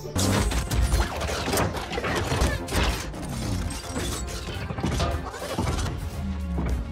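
Movie sound effects of a giant robot: dense metallic clanking, ratcheting and crashing over a low rumble and music.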